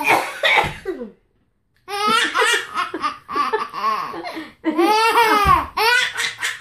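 A toddler laughing hard in repeated, high-pitched bursts of belly laughter, broken by a short silent pause about a second in.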